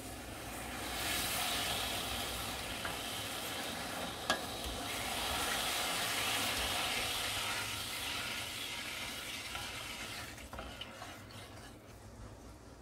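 Wooden spoon stirring soy-sauce pickling brine in a stainless steel saucepan, a continuous swishing and sloshing as the sugar is stirred in to dissolve. It swells about a second in and dies away after about ten seconds, with one sharp knock a little over four seconds in.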